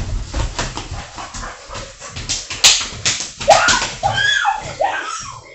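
Scuffling and thumps of people wrestling on a hardwood floor, then from about three and a half seconds in a dog whining, a string of short high cries that rise and fall.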